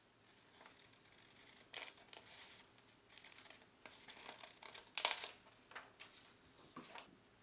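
Scissors snipping through a sheet of A4 paper, with crisp paper rustling in uneven bursts as the sheet is turned; the loudest snip comes about five seconds in.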